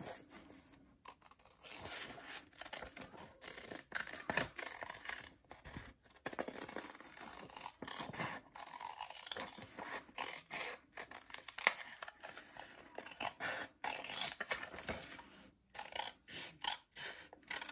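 Scissors cutting through folded thin copy paper in a run of short, irregular snips, with the paper rustling as it is turned along the curve.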